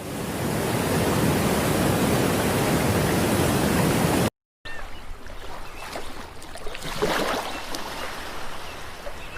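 Stock sound effects of rushing water. A loud steady rush fades in over about a second and cuts off abruptly about four seconds in. After a brief gap, a quieter watery noise follows, with scattered sharper sounds in it.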